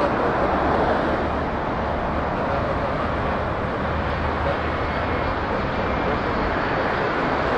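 Cessna Citation Longitude's twin turbofan jet engines: a steady rushing noise without a clear pitch, holding level throughout.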